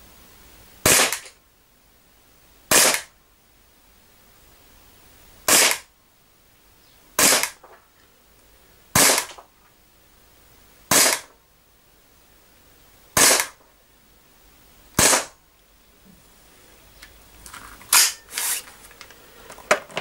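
Umarex H&K USP blowback CO2 BB pistol firing eight single shots, each a sharp crack, irregularly spaced about one and a half to three seconds apart. A few quieter clicks and knocks follow near the end.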